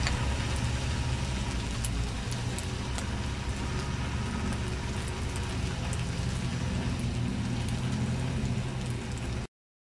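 A front-wheel-drive van's engine pulls hard under load as the van churns through mud on snow chains. There is a steady low engine note, a spattering noise with scattered sharp ticks over it, and the sound cuts off suddenly near the end.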